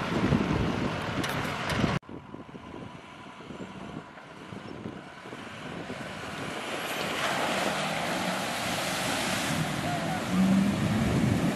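Wind noise on the microphone over a vehicle engine, then a sudden cut about two seconds in. After it, a Ford pickup truck drives through a muddy puddle, engine revving and water and mud splashing, growing louder toward the end.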